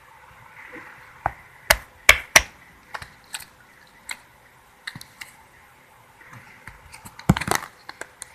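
Slime being squeezed and pulled by hand, giving short, sharp pops and clicks at irregular intervals, with a quick run of them about seven seconds in.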